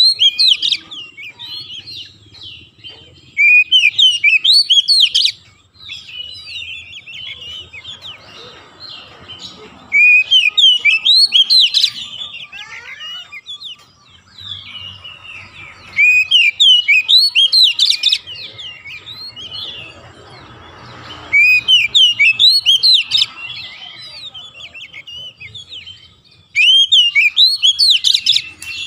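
Oriental magpie-robin singing: loud phrases of fast, sweeping whistled notes, each about two seconds long, repeated about every five to six seconds, with quieter twittering in between.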